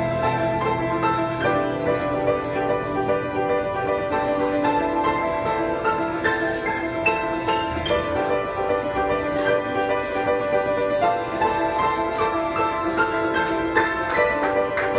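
Solo piano playing a dense passage of quick notes over held chords.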